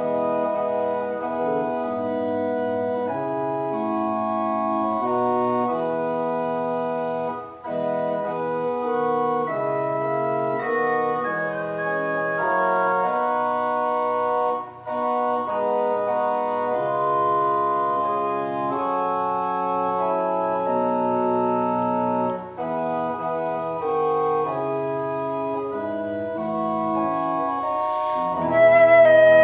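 Organ playing a hymn interlude in sustained chords, with brief breaks between phrases. Near the end a flute comes back in over it.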